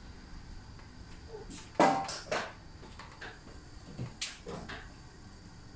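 A few short, sharp knocks and clatters: the loudest about two seconds in, quickly followed by two more, then a smaller cluster a couple of seconds later.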